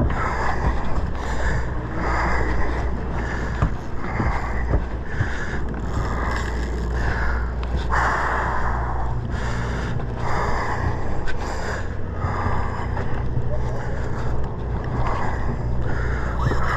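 A man breathing hard in short, uneven puffs while fighting a bluefin tuna on rod and reel, over the steady low drone of the sportfishing boat's engine.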